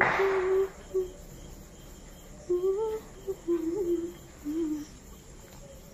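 A woman humming a tune with her mouth closed, in short phrases of gliding notes with pauses between them. A brief rush of noise comes at the very start.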